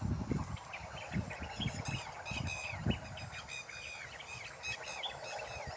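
Birds calling in a rapid series of short chirping notes, several a second, over an irregular low rumble that swells at the start and again about three seconds in.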